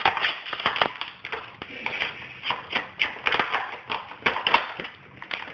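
Rapid, irregular plastic clicks and snaps as an Apple iBook's keyboard is pried out by force instead of released by its tabs, with keys popping loose.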